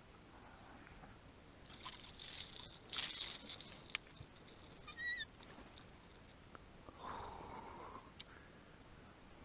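Water splashing in two short bursts as a small hooked fish thrashes at the surface, with a few scattered clicks and a short high chirp a couple of seconds later.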